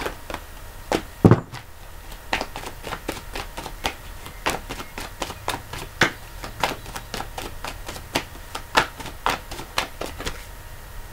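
A deck of oracle cards being shuffled by hand: a run of sharp, irregular clicks and taps, about two or three a second, as the cards strike against each other.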